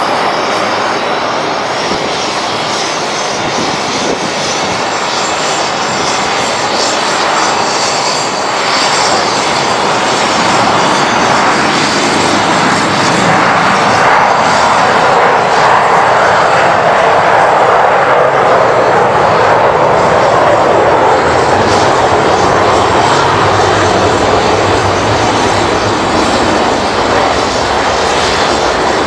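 Fokker 100 jet's two rear-mounted Rolls-Royce Tay turbofans at take-off power as the aircraft accelerates down the runway, lifts off and climbs away. The steady engine noise builds to its loudest around the middle and grows duller toward the end as the jet recedes.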